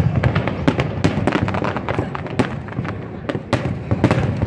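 Aerial firework shells bursting in quick succession: many sharp bangs, irregularly spaced, over a continuous low rumble.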